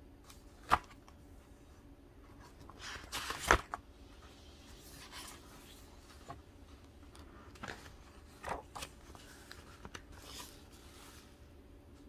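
Paper booklet pages rustling and crinkling in short scattered bursts, with a few sharp clicks; the loudest rustle and click come about three and a half seconds in.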